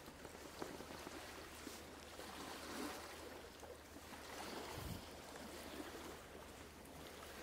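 Faint seaside ambience: an even hiss of light wind and small waves.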